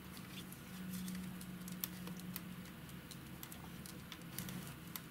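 Metal knitting needles clicking and tapping faintly and irregularly as wool yarn is worked into a 2x2 rib.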